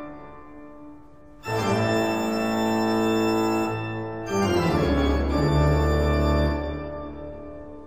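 Organ music: long held chords. A new chord comes in about a second and a half in and another around four seconds, and the sound fades near the end.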